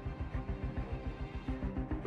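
Background music with a fast, steady beat.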